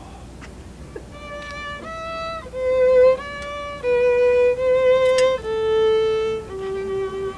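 Solo fiddle playing a slow tune of held, bowed notes. It starts about a second in and works its way down to a long low note.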